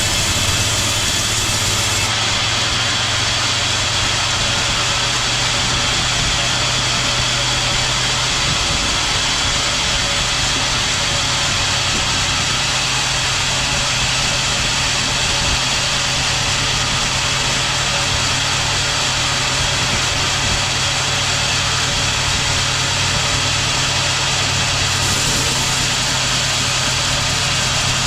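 Sawmill machinery running steadily: a continuous motor hum under a dense, even hiss, with no breaks or changes.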